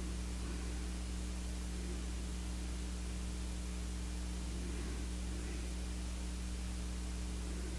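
Steady hiss with a low, constant hum underneath: background recording noise, with no distinct event standing out.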